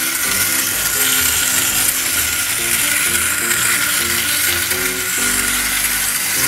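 Capsule Plarail Doraemon Tram, a clockwork wind-up toy tram, running around a circle of plastic track, its spring motor and gears giving a steady high whirr, over background music with a simple melody.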